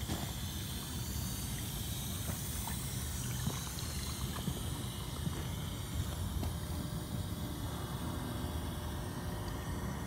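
LG dishwasher running a quick wash cycle: the wash pump runs steadily and water swishes inside the tub, over a fluctuating low rumble.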